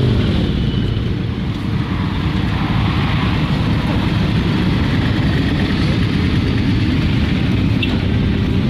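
Motorcycle engines running in a steady low rumble.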